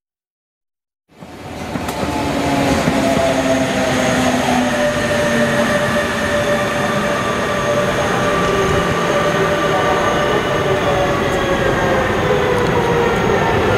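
A train running through the station, a steady loud rumble with several held whining tones over it, starting suddenly about a second in.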